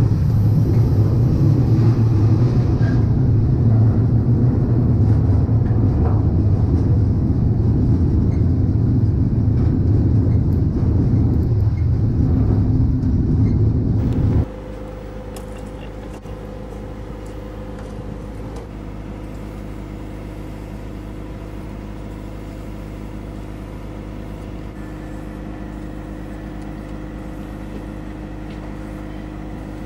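Loud, steady low rumble of a moving freight train, heard from a rider on the end platform of an intermodal well car. About halfway it cuts off abruptly to a much quieter steady hum carrying a few steady tones.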